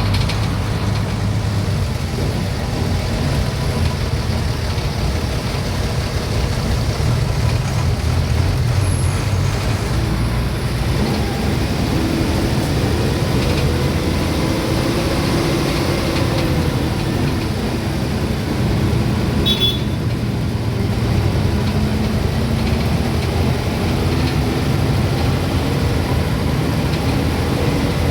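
Motor vehicle on the road: steady engine and road rumble, the engine note rising a little around the middle, with a brief high squeak about two-thirds through.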